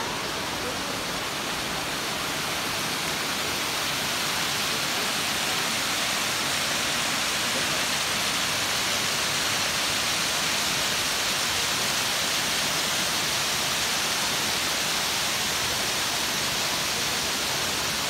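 Steady rush of a waterfall falling down a rock face, growing slightly louder a few seconds in.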